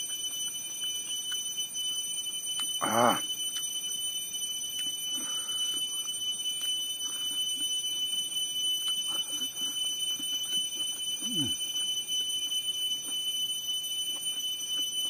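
Steady high-pitched drone of insects, with faint chewing and mouth sounds from eating by hand. About three seconds in comes a short, louder voiced sound that wavers in pitch, and near the end a brief falling sound.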